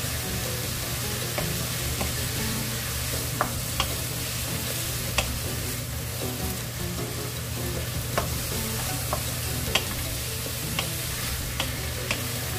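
Julienned bellflower root stir-frying in a nonstick frying pan, with steady sizzling. A wooden spatula scrapes through it, and its sharp clicks against the pan come at irregular moments.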